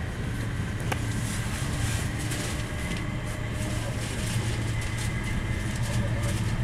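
A Southeastern electric commuter train running, heard from inside the carriage as a steady low rumble, with a sharp knock about a second in.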